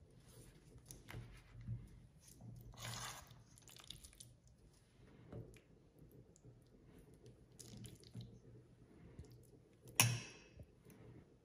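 Faint food-handling sounds: a spoon scooping chicken and cream cheese filling and spreading it on a thin spring roll pastry sheet on a wooden board, with soft rustles and scrapes. A single sharp tap near the end is the loudest sound.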